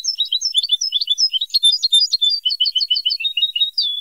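European goldfinch song played from a song-tutoring tape: a fast, unbroken run of twittering chirps and short trills that cuts off abruptly at the end.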